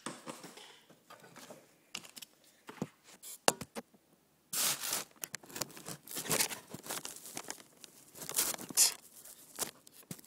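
Handling noise from picking up and showing a plastic Buzz Bee toy blaster: irregular rustling and scraping with scattered sharp clicks, and a brief pause a little before the middle.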